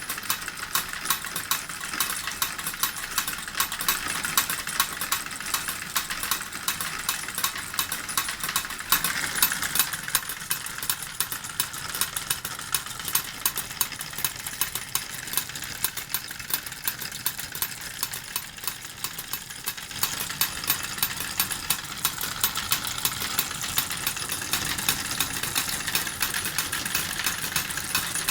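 Model steam engine driving two miniature forging hammers through a line drive, giving a fast, steady clatter of many small metal knocks.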